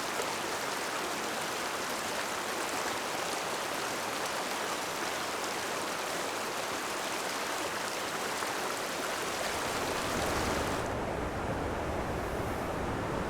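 Stream water rushing steadily. About ten seconds in, the sound turns deeper and duller, with less hiss and more low rumble.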